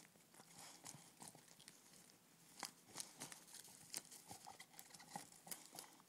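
Faint crinkling and tearing of gift wrapping paper as a boxer dog chews and pulls at it, with scattered soft crackles and a few sharper ones in the middle.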